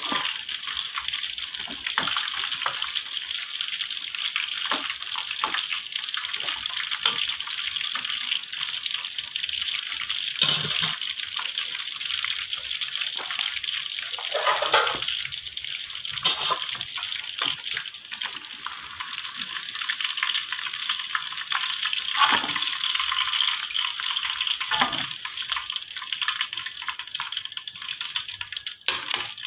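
Tulingan (frigate tuna) deep-frying in hot oil in a wok: a steady sizzle with scattered pops and crackles, and a few louder sudden spatters.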